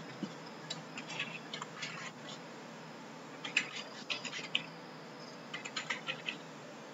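Computer keyboard being typed on: three short runs of quick keystroke clicks.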